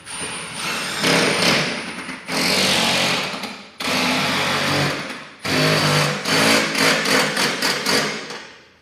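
Cordless drill driving screws up into a steel mounting bracket, in four runs of one to three seconds with short breaks between them, stopping just before the end.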